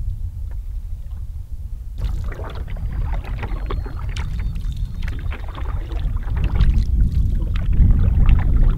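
Canoe being paddled: splashing and dripping water from paddle strokes, starting about two seconds in and growing louder toward the end, over a steady low rumble.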